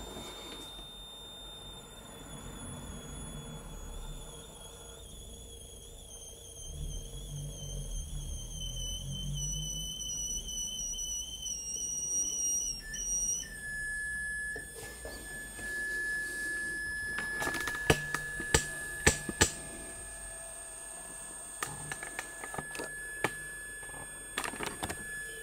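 High-pitched electronic whine from the Bedini SSG's pulsed drive coil and circuit switching at a few kilohertz. The whine wavers and slides slowly down in pitch, then about halfway through it jumps abruptly to a steady, lower whistle. A few sharp clicks sound over it later on.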